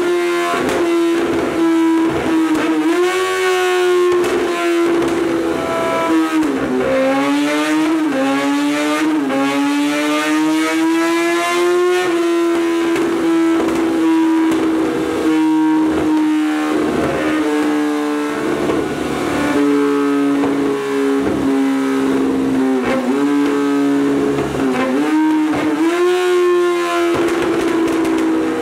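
Kawasaki Z750's inline-four engine running at high revs on a motorcycle dyno through an SC-Project racing exhaust, the rear tyre driving the roller. The revs hold high with several brief dips, climb steadily for a few seconds near the middle, then sink slowly before picking up again near the end.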